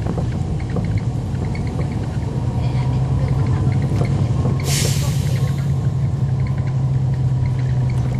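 Cummins ISL9 diesel engine of a NABI 40-SFW transit bus running steadily, heard from on board as a constant low drone with a faint steady higher tone. A short burst of hiss cuts in just past halfway.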